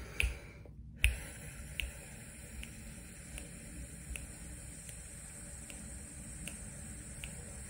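Fingers snapping a steady beat, about ten even snaps a little under a second apart, counting out a slow exhale. From about a second in they sound over a soft, steady 'fff' hiss of breath let out through the lips.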